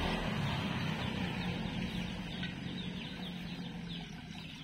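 Birds chirping in quick, short repeated calls over the low hum of passing road traffic, which fades over the few seconds.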